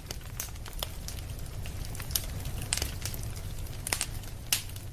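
Wood campfire crackling: irregular sharp pops and snaps from the burning logs over a steady low rumble, with a few louder pops a little before the midpoint and near the end.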